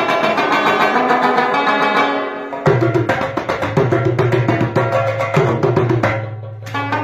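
Rabab, the Afghan plucked lute, played in fast, rhythmic picked phrases over hand drumming on a metal pot drum (mangay). The music eases briefly about two and a half seconds in and again near the end, between phrases.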